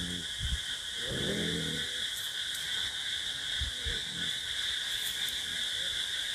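Steady high chorus of night insects, with a few short low growls over it, the strongest about a second in.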